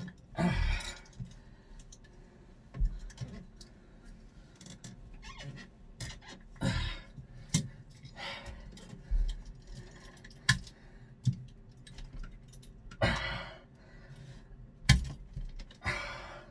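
Utility knife cutting through a marine toilet's white sanitation hose, in irregular short scraping strokes with clicks and knocks of handling between them.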